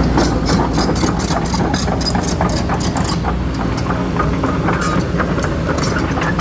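Excavator's diesel engine running steadily under a dense run of metallic clanks and rattles from the working machine.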